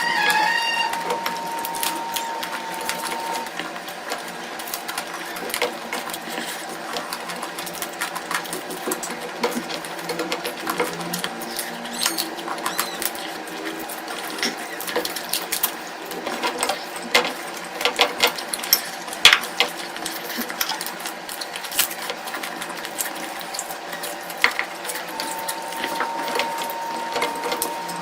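Close-miked eating sounds: wet chewing, lip smacks and mouth clicks coming in quick, irregular bursts.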